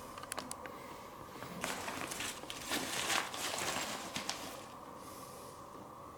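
Small plastic wireless-mic parts and their packaging being handled: a few sharp clicks, then a few seconds of rustling with more clicks. A faint steady hum runs underneath.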